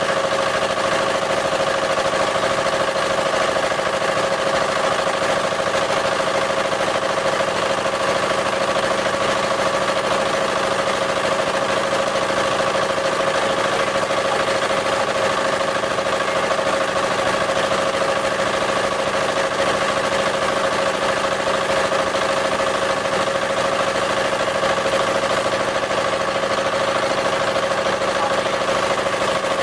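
The engine of a wooden river boat runs steadily under way, an even, unbroken drone with a steady hum in it.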